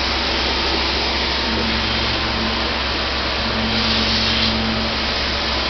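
Pre-coated film laminating machine running: a steady whirring of motors and fans, with a low hum that sets in about a second and a half in and drops out briefly partway through.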